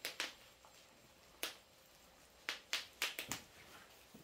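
Bubble wrap being popped: a string of sharp, irregular pops, several in quick succession past the middle, with a crackle like burning firewood.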